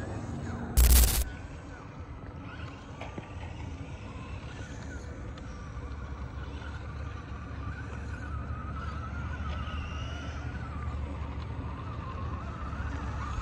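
Small RC rock crawler's electric motor and gears whining in wavering spurts as it climbs rock, over a steady low rumble. There is a short, loud burst of noise about a second in.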